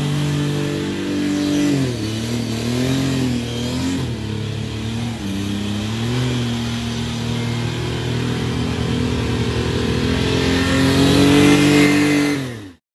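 Twin-turbocharged golf cart engine running hard as the cart circles. It holds high revs, drops and wavers in pitch about two seconds in, climbs again near the end, then cuts off suddenly.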